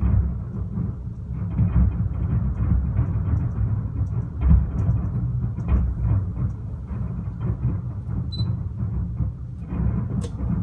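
Fireworks display going off in a dense, continuous barrage: many overlapping low booms with no break between them.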